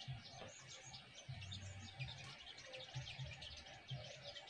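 Many small birds chirping steadily in the background, faint, with soft low hums coming and going underneath.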